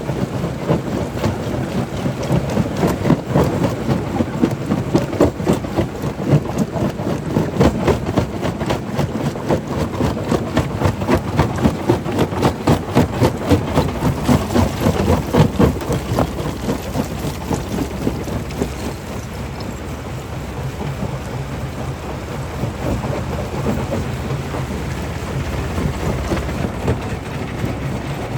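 Stone crusher running, a low rumble with a dense rapid clatter of rock being broken; the clatter eases after about sixteen seconds, leaving a steadier rumble.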